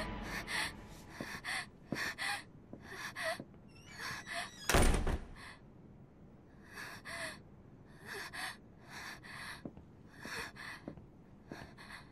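A young woman panting hard and unevenly, out of breath after running, with a single loud thump about five seconds in.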